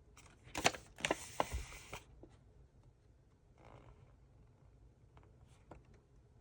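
Packaging being handled and pulled open by hand: a loud crinkling, tearing rustle with sharp clicks in the first two seconds, then fainter rustles and a few light ticks.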